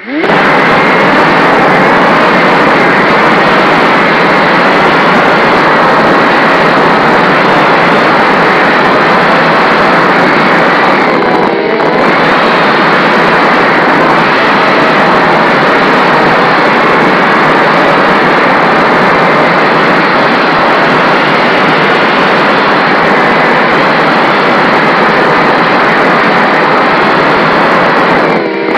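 Mini racing quadcopter's four Emax RS2205 2300kv brushless motors and propellers running in flight, heard from its onboard camera; loud and steady, briefly easing off about eleven seconds in and again near the end.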